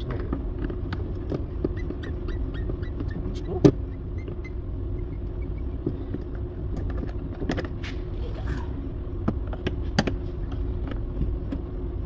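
Plastic interior trim clips on a Toyota RAV4 door panel clicking and snapping as the handle trim piece is pried loose, with scattered sharp clicks, the loudest a little under four seconds in. A steady low hum runs underneath.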